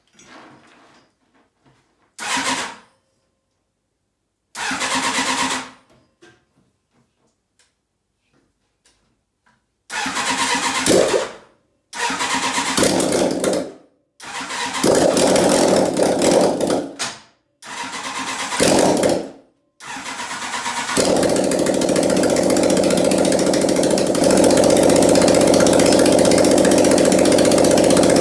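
Four-cylinder engine being cranked in a series of short bursts, the first two brief and the next four lasting a second or two each. About 21 seconds in it catches and keeps running steadily, a little louder a few seconds later.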